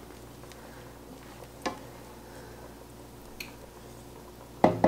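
Wooden spoon quietly stirring simmering vegetable sauce in a copper pot, with two light knocks about a second and a half apart, over a low steady hum. A louder sharp sound comes near the end.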